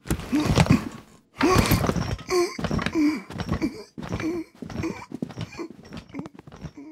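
Cartoon sound effects: a suitcase being closed and handled, with clicks and rustling in the first second. A string of short voiced grunts and squeaks with soft thumps follows.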